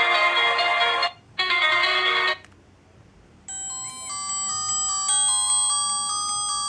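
Ringtone previews from an L8STAR BM10 mini phone. A dense multi-note ringtone melody cuts off about two seconds in, and after a second of quiet a different, simpler melody of clean stepped beeping tones starts.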